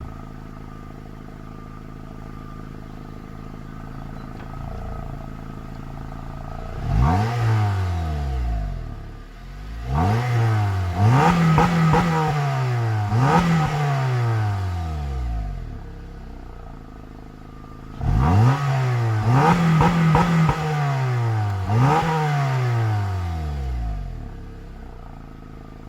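Honda Accord CU2's 2.4-litre K24Z3 four-cylinder idling on its stock exhaust, then blipped and revved hard in two groups of quick revs. The pitch climbs fast and falls back slowly each time. Several revs hold briefly at the top, which fits the stationary rev limiter at 4500 rpm. It settles back to idle near the end.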